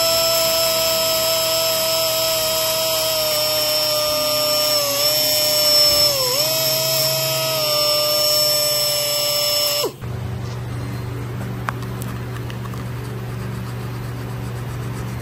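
Small high-speed power grinder running with a steady high whine while grinding down chipped corners of a carbon fiber hood; its pitch dips twice as it bites into the work. It stops abruptly about ten seconds in, leaving a steady low hum.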